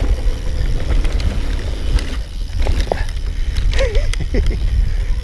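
Mountain bike rolling fast over grass and dirt trail: a steady low rumble of wind buffeting the microphone and tyres on the ground, with small clicks and rattles from the bike.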